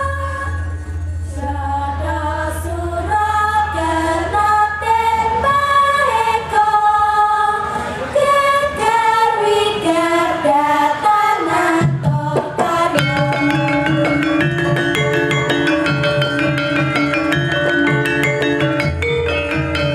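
Javanese gamelan playing with a female chorus singing over the struck bronze metallophones and drums. About twelve seconds in, the singing stops and the metallophones carry on alone with a steady run of struck notes.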